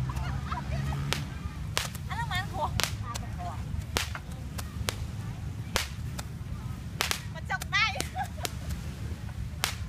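Small fireworks cracking and popping at irregular moments, about fifteen sharp reports, over a steady low rumble. A couple of short high warbling sounds come about two seconds in and again near eight seconds.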